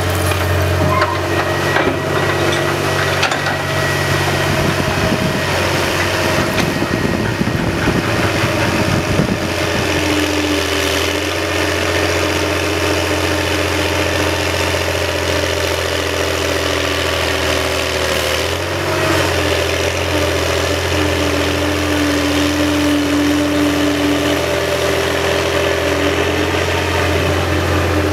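Menck M260 cable dragline's engine running steadily under working load as the bucket is hoisted and dragged. A gritty, clattering noise sits over the engine for roughly the first third, and the engine note shifts about two-thirds of the way through.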